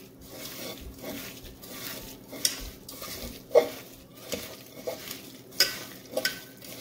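A hand squeezing and kneading sliced onion, tomato, spice powders and coconut oil together in an aluminium pressure cooker: irregular wet squishing and crackling, with a few sharper clicks, the loudest about three and a half seconds in.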